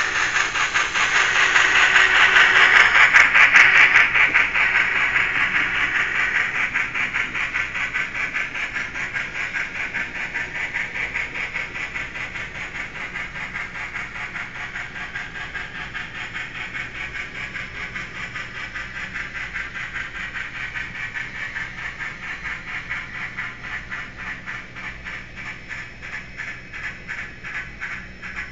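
Model Union Pacific Challenger steam locomotive running with its sound decoder, giving rapid, even steam chuffs over the rolling freight cars. Loudest a few seconds in as it passes, then gradually fading as the train moves away.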